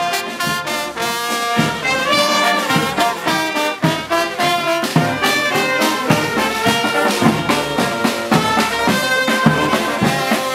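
Marching brass band of trumpets, trombones and saxophones playing a lively tune together over a steady beat.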